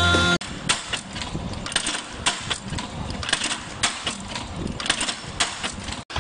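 Steel chain-making machinery running: irregular, rapid metallic clicks and clatter, several a second.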